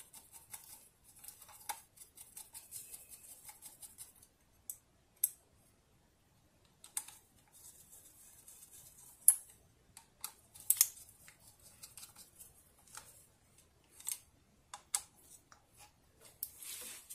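Small clicks, snaps and scratchy rustling of plastic parts and wiring being handled inside an opened Fuji Clean MAC80NA septic-tank diaphragm air blower. The rustling is heaviest in the first few seconds, and a few sharper clicks stand out, the loudest about nine seconds in.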